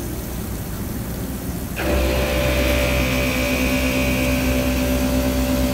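Bridge-type CNC milling machine's AC90 right-angle head milling a metal frame under coolant, with a steady machine rumble. About two seconds in it gets louder, with a hiss of cutting and several steady whining tones that hold.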